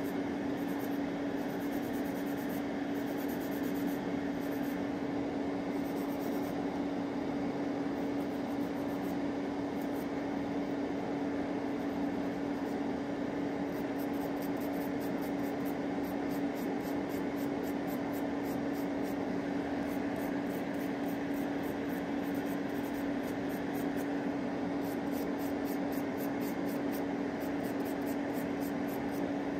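Electric nail drill running at a constant speed with a steady hum, filing down hardened gel on fingernails.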